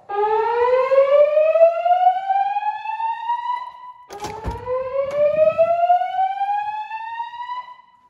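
Slow-whoop evacuation tone from a Notifier voice-evacuation system through Gentex speaker strobes, played between spoken fire alarm messages: two rising sweeps, each climbing steadily in pitch for about four seconds. A clunk sounds about halfway through, as the second whoop starts.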